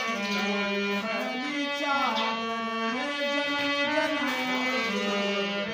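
Instrumental passage of a Hindi Krishna bhajan: a melody of long held notes stepping between pitches over a steady sustained drone.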